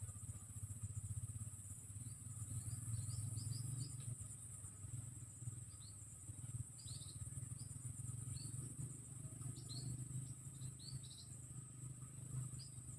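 Insects, crickets, keeping up a steady high-pitched drone, with many short bird chirps scattered through it and a low rumble underneath.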